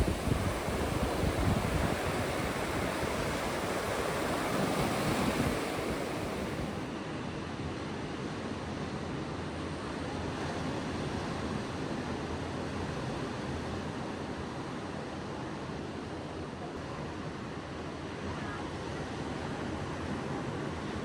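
Ocean surf washing steadily onto the beach, with wind buffeting the microphone in the first few seconds. About seven seconds in the sound steps down suddenly and carries on as a quieter, even wash of waves.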